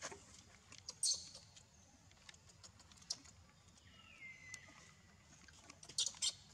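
Monkeys scrabbling and rustling about, with scattered small clicks and scratches and two short, sharp, high squeaks, one about a second in and one near the end. About four seconds in there is a thin whistling call that drops in pitch and then holds.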